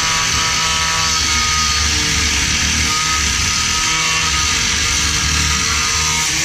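Cut-off tool with a zip disc running steadily under load, whining and rumbling as it cuts through the exhaust's connections under the car.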